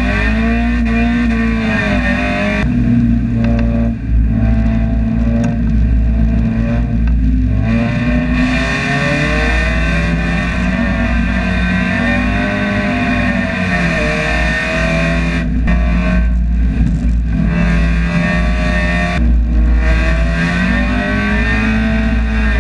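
Mazda Miata race car's four-cylinder engine heard from inside the cabin, revs rising and falling again and again as it is driven hard, over a heavy low rumble.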